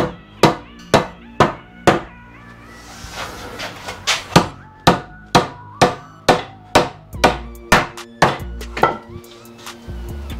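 Rubber mallet tapping the top rail of a tulipwood door frame down onto its domino floating-tenon joints during a dry fit: a steady run of knocks, about two a second, with a brief pause after the first few.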